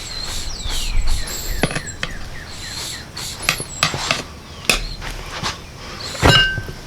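Pry bar working a lawn tractor tire's bead loose from the wheel rim: a string of sharp metal knocks and clinks, with thin high squeaks of the rubber early on. The loudest knock, about six seconds in, rings briefly.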